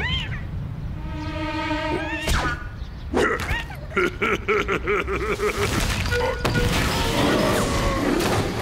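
Cartoon background music with comic sound effects: sliding tones, a couple of sharp hits, and a wobbling wordless cartoon-bear vocal in the middle.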